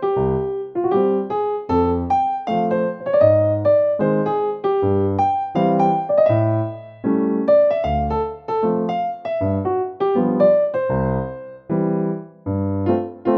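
Background piano music: a melody of separate, rhythmic notes over low chords.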